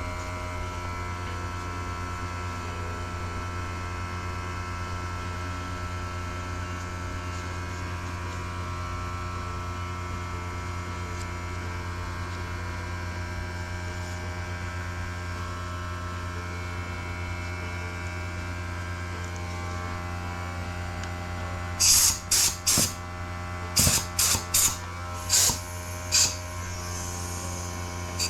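Air compressor running steadily as its tank builds pressure, a constant hum. In the last few seconds, several short hissing blasts of compressed air from an air nozzle.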